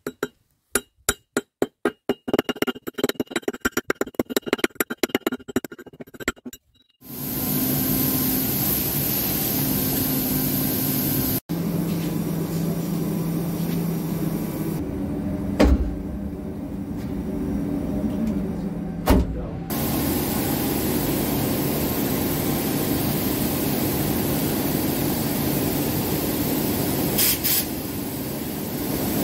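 Rapid sharp metal-on-metal taps as a blade point chips rust scale off an old pickaxe head. About seven seconds in, this gives way to the steady noise and low hum of sandblasting-cabinet machinery running, with a short hiss near the end.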